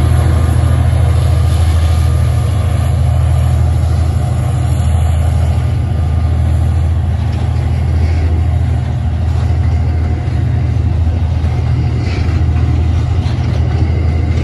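Fully loaded coal train climbing a grade: a steady low drone from its Aurizon diesel locomotives working under load, with the coal hopper wagons rolling past and their wheels running on the rails.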